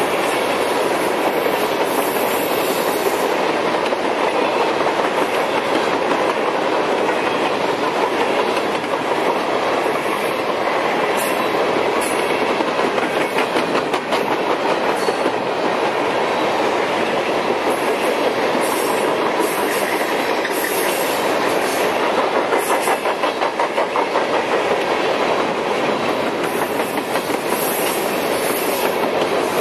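Freight train of open-top hopper cars rolling past: steady noise of steel wheels on rail with a regular clickety-clack over the rail joints, most distinct about two-thirds of the way through.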